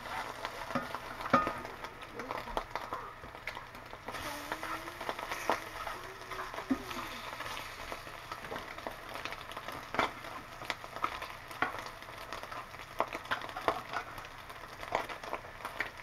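Slices of SPAM sizzling and crackling as they fry in a skillet, with frequent sharp clicks and scrapes of a metal spatula turning them against the pan.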